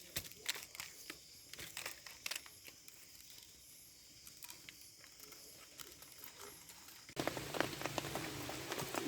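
Scattered raindrops ticking and pattering on a surface, turning abruptly louder and denser about seven seconds in.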